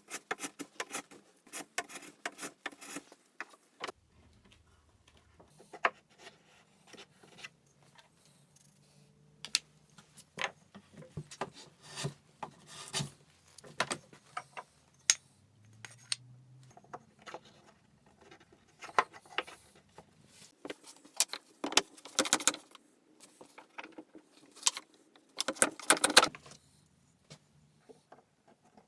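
Hand-tool woodworking at the bench: irregular clicks, taps and clinks of tools and wood being handled. There are a few longer, louder scraping bursts about two-thirds of the way in and again near the end.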